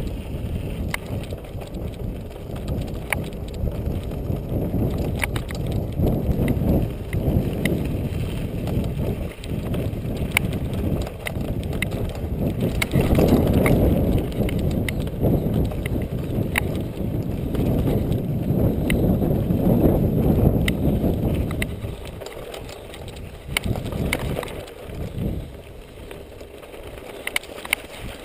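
Univega Terreno 100 hybrid bike ridden over a rough dirt track, heard from a GoPro on the bike: a steady low rumble of wind and tyres on the mic, with the bike rattling and sharp clicks and knocks over the bumps. It gets quieter about three-quarters of the way through.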